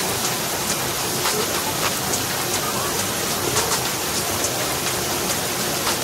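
Waterfall rushing steadily, with faint splashes and drips scattered through it.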